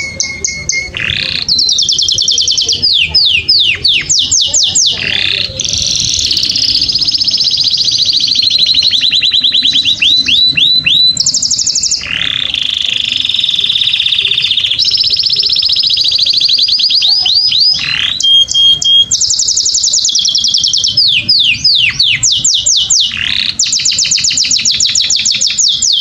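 Domestic canary singing one unbroken song of rapid trills and rolls. Each section is a fast run of repeated high notes, some held as whistles, and the song switches to a new phrase every second or two.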